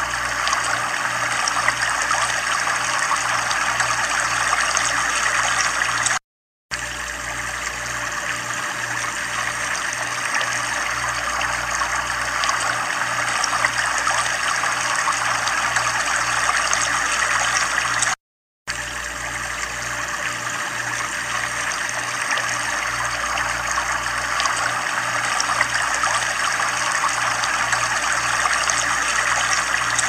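Waterfall pouring onto rocks into a whitewater stream: a steady, even rush of falling water. The sound cuts out to silence twice, for about half a second each time, about six seconds in and again past the middle.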